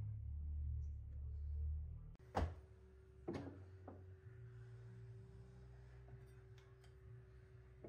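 Two sharp knocks about a second apart, then a lighter one, as a metal combination square is set and shifted against a painted timber window lining. A faint steady hum runs under them.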